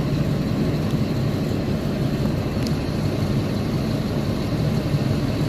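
Heavy diesel mining machinery running with a steady, deep rumble: large excavator and haul-truck engines working at a loading site.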